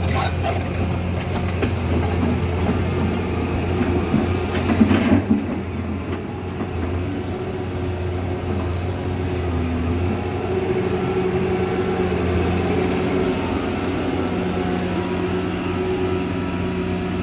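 Volvo crawler excavator's diesel engine running steadily under digging load. About five seconds in, a loud burst of clatter and scraping as the steel bucket works through broken rock.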